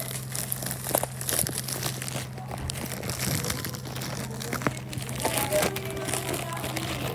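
A plastic shipping bag crinkling and crackling as it is handled and opened, in dense, irregular crackles, over a steady low hum.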